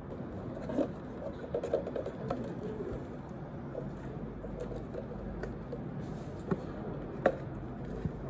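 Steady room noise with scattered light clicks and taps, the sharpest near the end, from a paper coffee cup being handled and raised to drink and a hand moving on an office desk.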